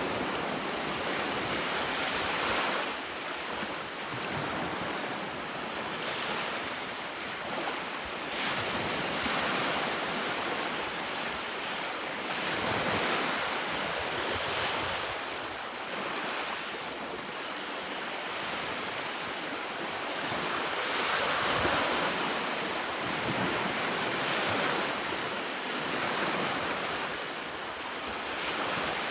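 Sea waves washing onto a shore, a continuous surf hiss that swells and ebbs every few seconds.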